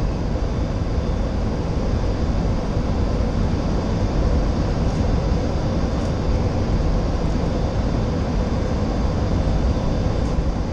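Steady flight-deck noise of a Boeing 737-800 on short final approach: an even rush of airflow and engine noise heard inside the cockpit, with a faint steady hum.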